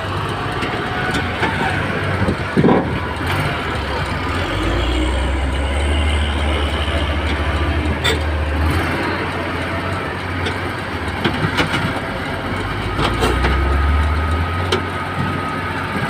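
Komatsu D65E crawler bulldozer's diesel engine running as the machine moves, its low rumble swelling twice for a few seconds each under load, with a few sharp metallic knocks.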